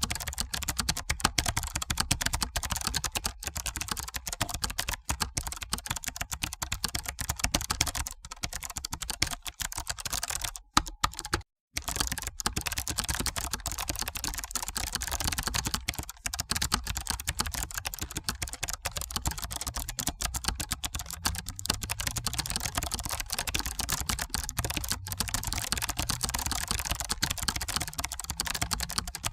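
Continuous fast typing on a computer keyboard: a dense, uneven patter of keystrokes, with a brief break about eleven seconds in.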